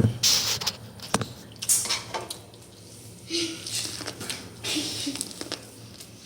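Bursts of rustling with sharp clicks and a light clatter, as of objects being handled.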